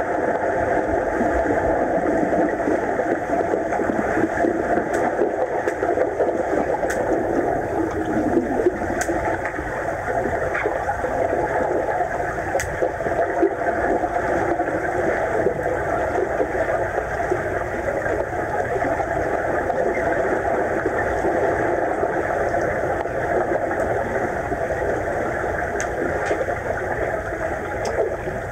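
Steady muffled hum and hiss of pool water heard underwater, with a few faint clicks here and there.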